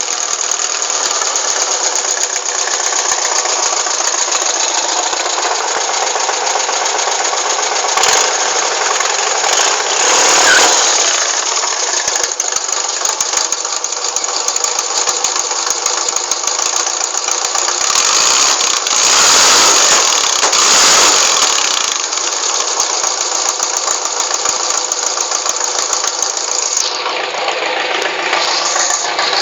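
Air-cooled flat-four engine of a 1996 Volkswagen Kombi panel van running steadily. It gets louder for a moment about ten seconds in, and again for a few seconds around nineteen to twenty-one seconds.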